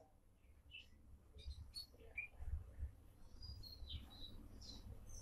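Faint chirping of small birds, a scatter of short high chirps, together with soft wet sounds of a spoon stirring sliced potatoes into beaten egg in a glass bowl.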